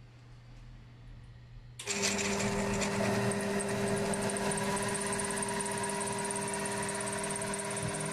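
Small benchtop milling machine's spindle motor switched on about two seconds in, then running steadily with a high whine, spinning without cutting.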